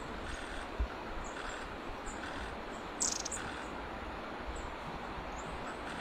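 Small birds giving short, high-pitched chirps every second or so over a steady background hiss, with a brief buzzy rattle about three seconds in.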